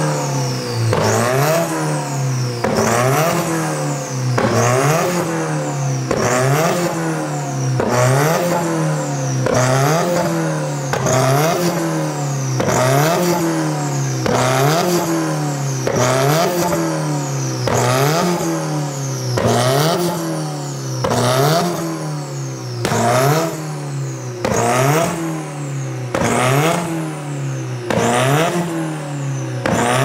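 Subaru WRX turbocharged flat-four revved again and again through a side-exit exhaust, the note climbing and dropping back about every second and a half to two seconds. Sharp cracks sound at the top of several of the later revs.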